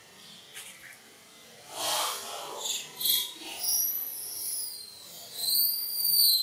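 Baby monkey crying for its mother's milk as it is being weaned. A few short noisy squeaks are followed by two long, high-pitched squeals, each rising and then falling, about four and five and a half seconds in.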